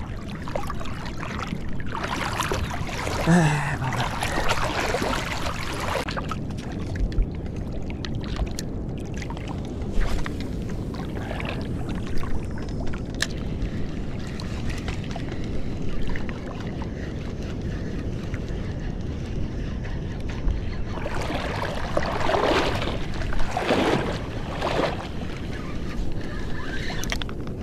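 Steady rumble of wind buffeting the microphone over shallow sea water lapping around a wader's legs, with two louder rushing stretches of noise, about two seconds in and again about twenty-one seconds in.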